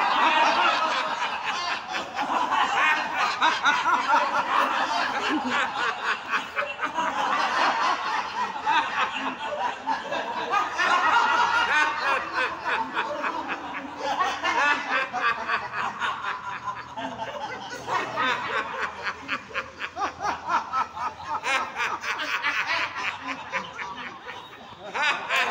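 A group of people laughing together in a laughter-yoga exercise: deliberate, long, rhythmic ha-ha laughs from many voices overlapping without a break.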